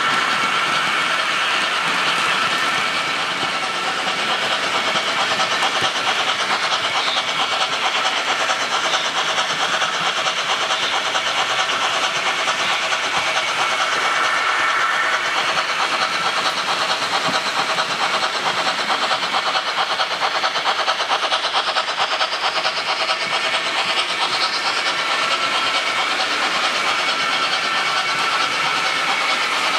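Märklin HO-scale model trains running on track: a steady motor whine with a fast, even rattle of wheels over the rails.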